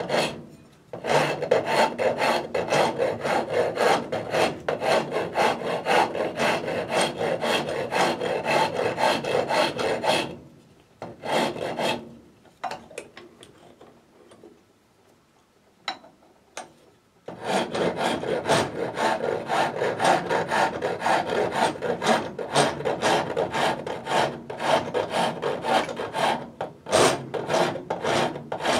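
Hand rasp scraping back and forth across a wooden drawknife handle blank in quick, steady strokes, shaping it. The rasping stops for several seconds midway, with only a couple of single strokes, then carries on.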